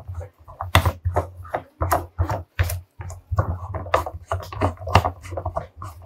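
Irregular clicks and knocks of plastic on plastic as a plastic back-nut tank connector is handled and pushed into the hole of a plastic water tank, over a low steady hum.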